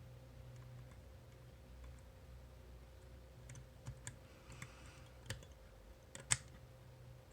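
Faint metallic clicks from a homemade disc-detainer pick turning the discs inside an Abloy Classic cam lock. A few scattered clicks come in the second half, with a brief faint scrape among them; the sharpest click is about six seconds in.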